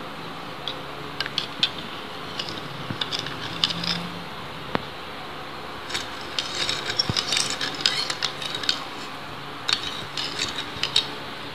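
Metal spoon stirring liquid in a bowl, clinking and scraping against the bowl's sides in irregular clicks, busiest in the second half, over a steady background hiss.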